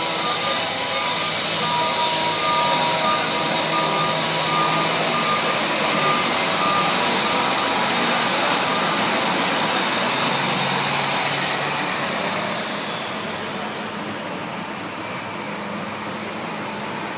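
Large truck reversing, its backup alarm beeping steadily over the running engine and road noise. The beeping stops about seven seconds in, and the engine noise drops away a few seconds later.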